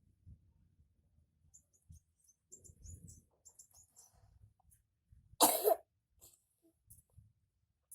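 A person coughs once: a single short, loud cough about five and a half seconds in.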